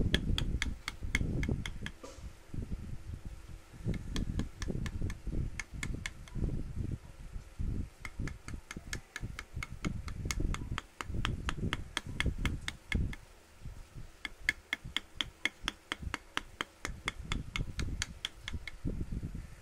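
Hammer tapping a carving chisel into wood in quick, regular strokes, about three to five a second, with a brief pause near the middle. A low rumble runs underneath.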